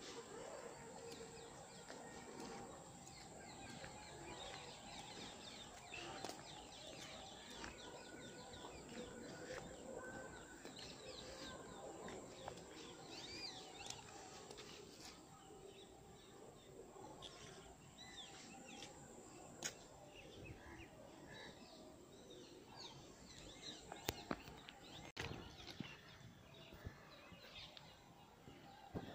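Faint outdoor ambience with birds chirping, many short calls throughout, and a few sharp clicks near the end.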